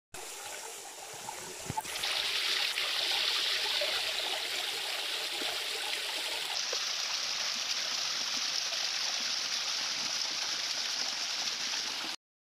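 Small forest stream trickling and splashing over wet rock ledges, a steady rush of running water that grows louder about two seconds in.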